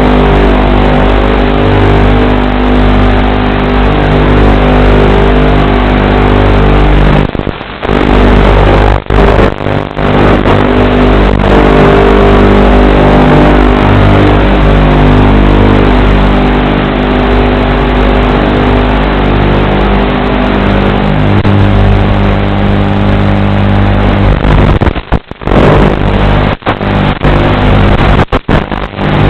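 FPV racing drone's motors whining steadily, recorded over the analog video link, which cuts out briefly several times.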